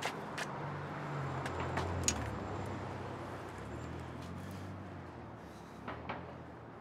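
City street traffic: a vehicle's low engine rumble swells and fades over the first few seconds against a steady background of traffic, with a few light clicks.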